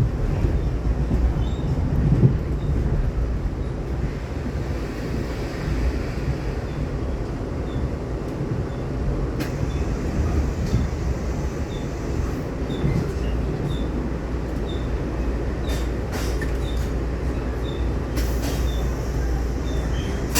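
Passenger train running: a steady low rumble with faint high chirps about once a second and a few sharp clicks in the second half.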